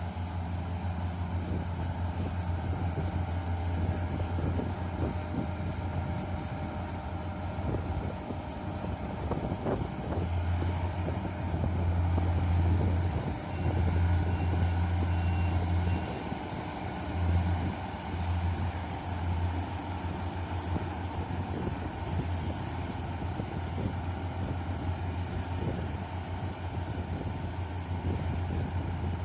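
Yanmar YH470 rice combine harvester running with a steady low engine hum that grows louder for a few seconds at a time around the middle.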